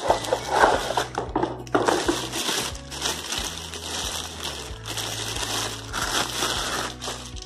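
Clear plastic packaging bag crinkling and rustling in spells as a hand blender wrapped in it is pulled from its box and handled.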